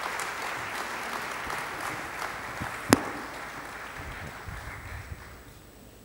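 Audience applauding, the applause thinning out and dying away over the last couple of seconds. A single sharp click about three seconds in is the loudest moment.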